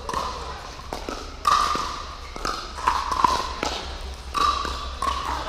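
Paddles tapping a plastic pickleball back and forth in a rally at the net, sharp taps roughly every half second to a second, with a touch of echo from the large hall.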